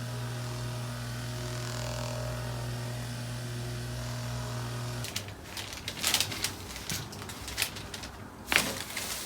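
A steady electric hum that cuts off abruptly about five seconds in, followed by a few sharp clicks and knocks.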